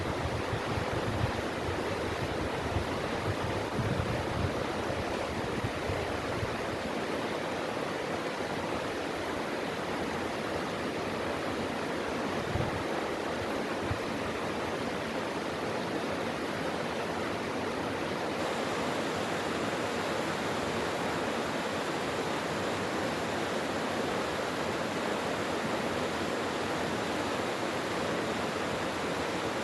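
Mountain valley stream rushing steadily, with low wind buffeting on the microphone in the first few seconds.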